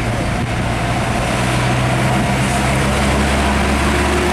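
Diesel engine of a Hino 500 car-carrier truck running steadily as it drives past, a low engine note over tyre and road noise.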